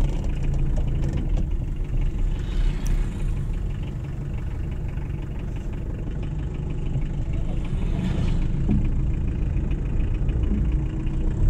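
Premier Padmini 138D's FNM diesel engine running while the car drives, heard from inside the cabin over tyre and road noise that swells briefly twice; an engine in good condition.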